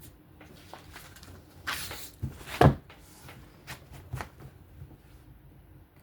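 A knife blade scraping across an Atoma diamond sharpening plate during freehand sharpening, in short irregular strokes with a few clicks. The loudest sound is a sharp knock about two and a half seconds in.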